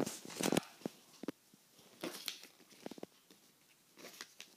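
Handling noise: soft rustles and small scattered clicks as the recording phone is moved about and covered, loudest in the first half second, then sparse and faint.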